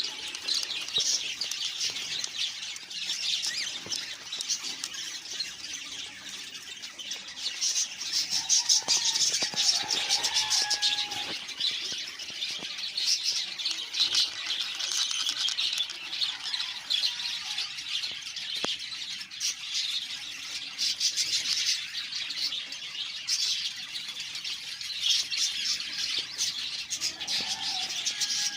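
Many budgerigars chattering and squawking without a break, with a few brief lower whistles about ten seconds in.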